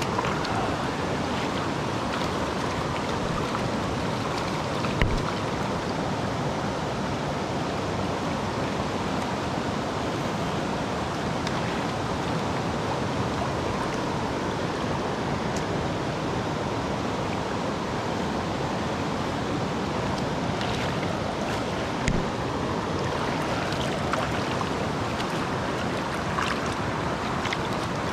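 Fast river current rushing steadily around the wading angler. Two brief knocks stand out, about five seconds in and again about twenty-two seconds in.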